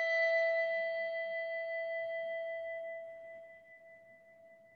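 A single struck bell ringing out and slowly fading over about five seconds: one strong clear tone with fainter higher tones above it. It is a memorial bell tolled after a name of the dead is read aloud.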